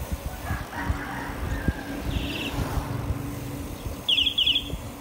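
Wind buffeting the microphone and road rumble from a moving bicycle, with a steady low hum through the middle. Near the end, a bird's quick series of three or four high, falling chirps stands out loudest.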